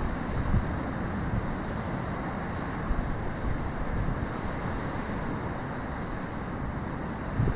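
Sea surf breaking and washing over coastal rocks: a steady rush of churning water, with low gusts of wind buffeting the microphone.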